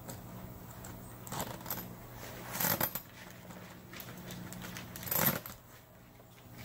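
Rustling and scraping of a rolled screen panel being handled, its zipper-toothed edge pushed into the post's track, in three short bursts over a steady low hum.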